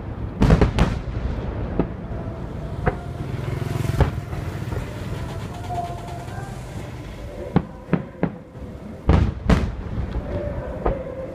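Aerial firework shells bursting in a string of about a dozen sharp booms at irregular intervals. The loudest come as a pair about half a second in and another pair about nine seconds in, over a steady background noise.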